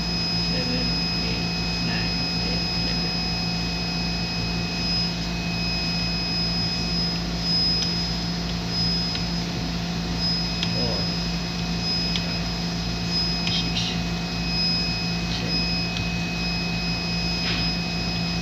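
Steady mechanical hum of running laboratory equipment, with a constant high-pitched whine over it and a few light clicks scattered through. A second, lower whine stops about a third of the way in.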